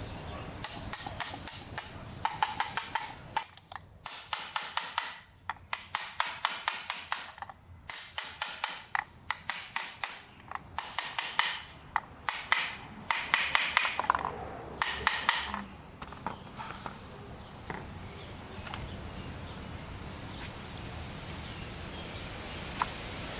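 Bursts of rapid light hammer taps, several a second with short pauses between groups, driving a new main bearing into an aluminium motorcycle crankcase. The tapping stops about two thirds of the way in. A steady rushing hiss follows and grows louder toward the end.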